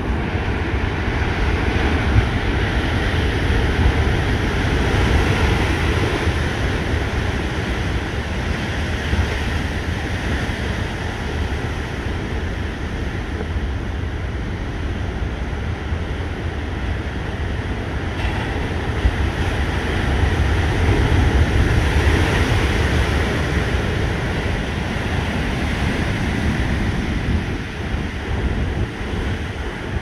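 Rough, storm-driven sea ahead of a typhoon: heavy surf breaking continuously, swelling louder twice, with wind rumbling on the microphone.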